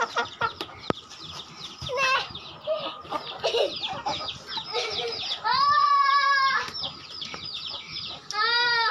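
Chickens clucking and squawking in many short calls. A child's loud, high, drawn-out squeal about two-thirds of the way through, and a shorter cry near the end.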